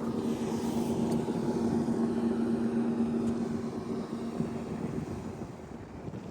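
A motor engine running with a steady, even hum that slowly fades toward the end.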